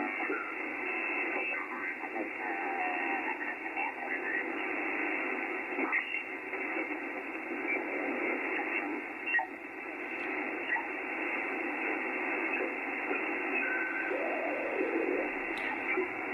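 Icom IC-7610 HF receiver's audio on the 80-metre band: a steady, band-limited hiss of static, with faint garbled snatches of sideband voices. The band's noise is relatively quiet, heard on a Mosley tri-band beam that is not resonant on 80 m.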